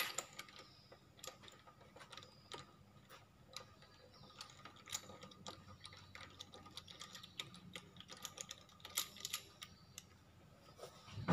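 Car wheel nuts being undone from the hub studs by hand and with a hand wrench: a run of light, irregular metallic clicks and ticks, bunched a little closer together near the end.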